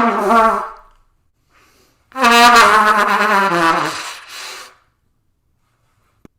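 Trumpet blasts: one short blare, then a longer one about two seconds in that sags in pitch as it ends, tuneless rather than a melody.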